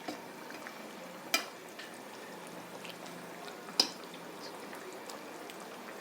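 Pot of chicken curry with rice balls bubbling on the stove while being stirred, with two sharp clinks of a utensil against the pot, about a second and a half in and again near four seconds.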